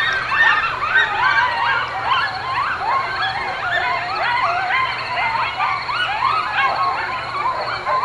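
Coyotes calling in a chorus of quick, overlapping yips and wavering howls that rise and fall in pitch without pause.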